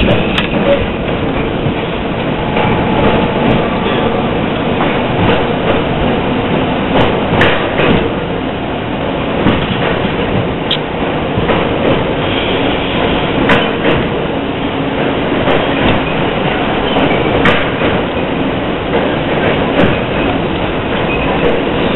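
R38 New York City subway car running at speed through a tunnel, heard from inside the car: a steady rumble of wheels on rail and running gear, with a few sharp clicks now and then.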